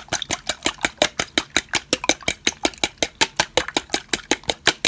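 Raw eggs being beaten by hand in a bowl with a metal utensil: a fast, even clicking of metal against the bowl, about seven strokes a second.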